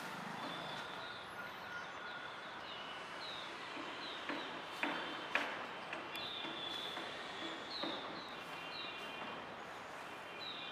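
Birds chirping, short high calls repeating every second or so with some held high notes, over a soft outdoor hiss. A few sharp clicks come around the middle.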